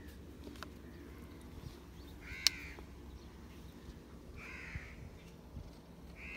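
A crow cawing: three short harsh caws, roughly two seconds apart, with a sharp click landing on the first caw.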